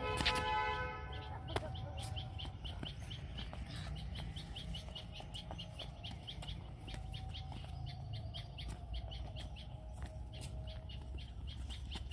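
Small birds chirping in quick, irregular high chirps, with a brief louder high-pitched call at the very start, over a steady low rumble.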